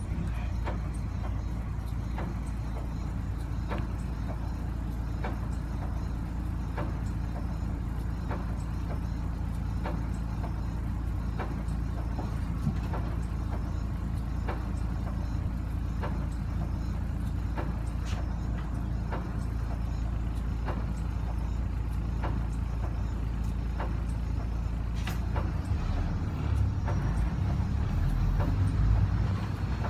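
City bus diesel engine idling steadily, heard from inside the cabin, with a light regular ticking about once a second. Near the end the engine note rises and gets louder as the bus pulls away.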